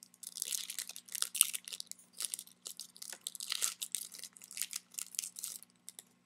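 Foil trading-card pack wrapper being torn open and crinkled by hand, a quick run of crackling rips and crumples that stops near the end.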